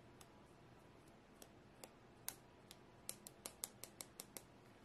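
Faint, sharp clicks over near silence: a few scattered ones, then a quick run of about seven in a second and a half near the end.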